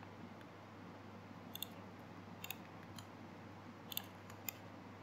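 Faint, sharp clicks of a computer mouse, about five of them, some in quick pairs, over a low steady hum.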